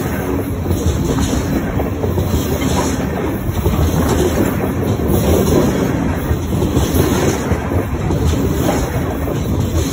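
Freight train tank cars rolling past at close range: the steel wheels on the rail make a steady, loud rumble with a rapid clickety-clack from the wheel trucks.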